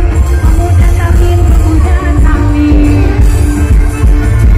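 Loud music with a heavy, continuous bass and a melody line, blasting from a truck-mounted wall of loudspeakers (a Javanese 'sound horeg' parade sound system).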